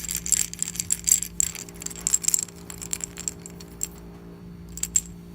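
Small metallic clicks and clinks as the screws and metal mounting bracket are worked off a 3.5-inch SATA hard drive, thick for the first couple of seconds, then a few scattered clicks near the end, over a steady low hum.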